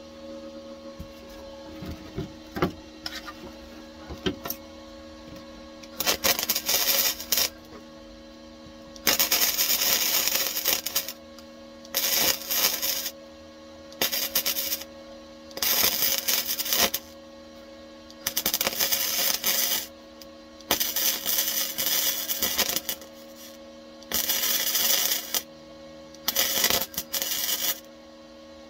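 MIG welder stitch-welding a repair on a car's steel rear floor tunnel: the arc crackles and spits in about nine short runs of one to two seconds each, starting about six seconds in, over a steady hum.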